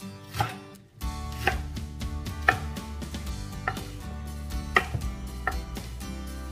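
Chef's knife chopping spring onions and onion on a wooden cutting board: about six separate sharp knocks of the blade on the board, roughly a second apart.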